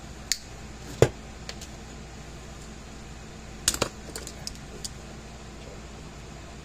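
Pliers and small metal hand tools clicking and clinking as they are handled and set down on a wooden workbench: a sharp click about a second in, another pair a little past halfway, then a short run of light ticks.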